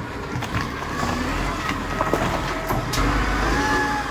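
ZL30B-D wheel loader's diesel engine running and working under load as its bucket pushes into a pile of dirt and rock, with scattered knocks and clatter of stones.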